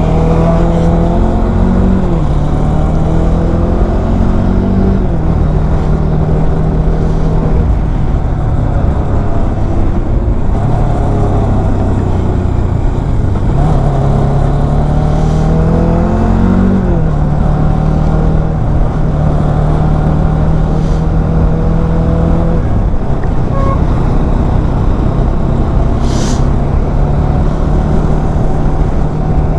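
Bajaj Dominar 400's single-cylinder engine under way, heard from the bike. Its note climbs as it pulls and drops sharply at gear changes a few times, with steadier cruising in between.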